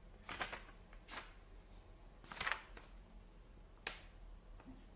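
A paper instruction sheet rustling as it is handled and turned over: a few short rustles, the loudest about two and a half seconds in, and a sharp click just before the end.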